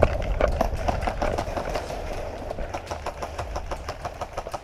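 Running footsteps on grass with gear and rifle rattling, about four steps a second, growing quieter and slowing near the end.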